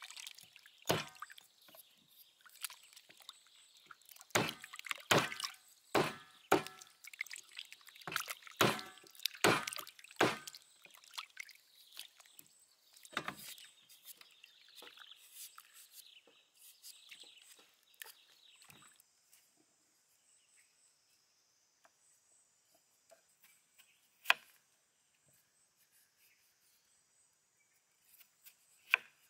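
Water splashing, sloshing and dripping as hands rub and lift pieces of raw beef rib in a metal bowl of water, in a busy run of splashes for roughly the first ten seconds. After that come fainter scraping ticks, as from a knife peeling a potato, then long near-quiet stretches with a couple of single light knocks.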